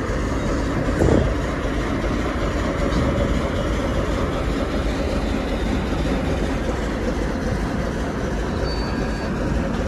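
ChME3 shunting diesel locomotive passing slowly and close, its six-cylinder diesel engine running steadily under the sound of the wheels on the track. There is a single louder knock about a second in.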